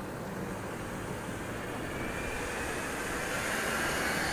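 Engine rumble of a passing vehicle, growing louder towards the end.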